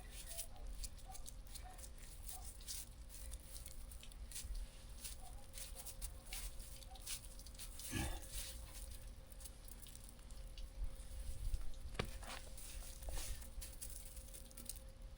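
Faint crunching and scraping of wet snow being handled and packed, with scattered small clicks and a sharper click about twelve seconds in.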